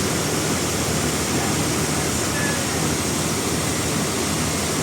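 Sawmill machinery running steadily: a loud, even noise.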